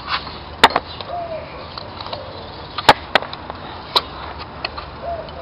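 A few sharp metallic clicks and knocks as the timing-belt tensioner pulley on a VW Pointer engine is handled and worked loose, the loudest about half a second in and two close together in the middle.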